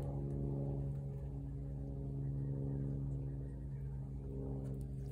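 A motor running steadily: a low, even hum at a constant pitch.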